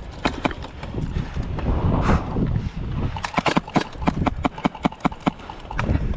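Airsoft guns firing in an exchange of shots: a string of sharp clicks in irregular runs, thickest in the middle and second half.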